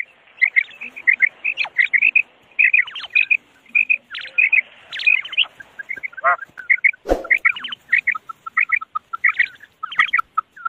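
Female common quail calling: short chirping calls in quick succession, several a second, with a lower-pitched run of calls in the latter part. A single sharp click comes about seven seconds in.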